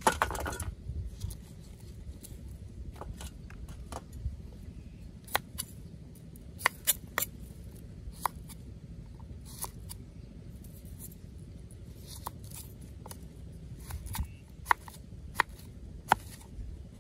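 Large kitchen knife cutting a cucumber on a wooden chopping block: irregular sharp chops and knocks of the blade through the cucumber onto the wood, a few of them louder. At the start, carrot slices are swept off the blade into a steel bowl.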